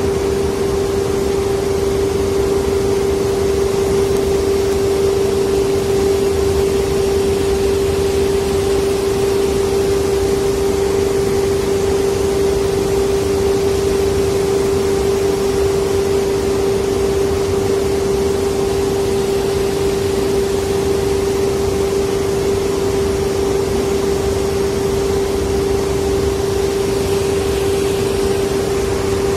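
Steady machinery hum: one constant pitch over an even hiss.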